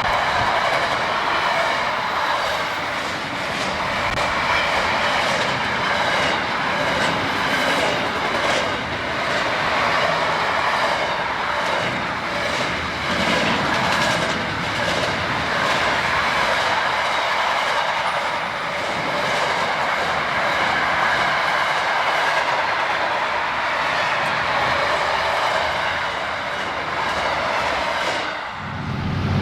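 Freight train wagons rolling past: a steady rumble of steel wheels on rail with irregular clicks over the rail joints. It cuts off shortly before the end.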